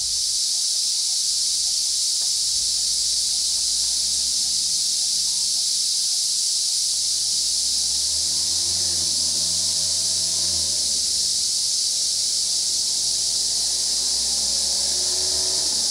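Steady, loud, high-pitched drone of insects in the roadside forest, unbroken throughout. A faint low hum sits beneath it and swells around the middle.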